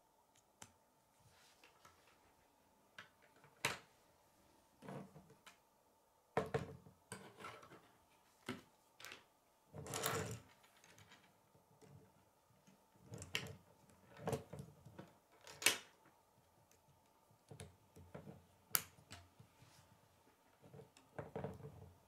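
Plastic K'nex rods and connectors clicking and snapping together as the pieces are pushed into place by hand, in irregular clicks and knocks, some with a dull thud.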